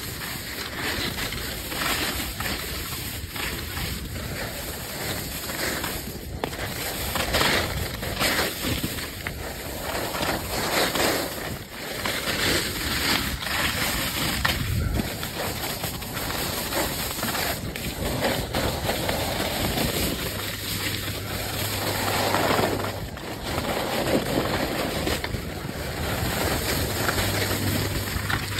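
Skis sliding and scraping over hard-packed snow at speed, mixed with wind rushing over the microphone, the noise swelling and fading.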